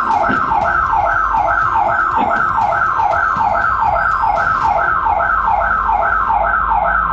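Security alarm siren sounding after an attempted break-in, a loud falling whoop repeated evenly about two and a half times a second.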